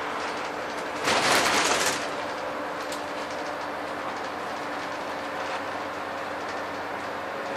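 Scania N230UD Enviro 400 double-decker bus heard from inside the upper deck, its five-cylinder diesel engine pulling at a steady note. About a second in, a loud rushing hiss lasts just under a second.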